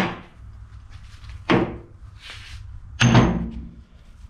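Two heavy metal knocks about a second and a half apart, the second with a brief ringing tone, over a low steady hum: steel wheel-set parts being knocked apart as a welded-on sprocket boss comes free.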